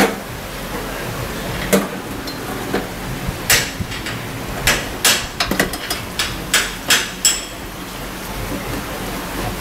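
Hammer blows on metal during motorcycle suspension and steering work: about a dozen sharp, irregular knocks and taps, thickest between about two and seven and a half seconds in, a few with a brief metallic ring.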